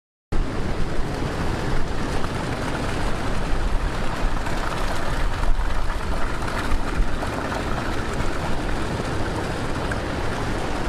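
Steady rushing noise of water and wind with a deep, fluctuating rumble, starting suddenly a moment in.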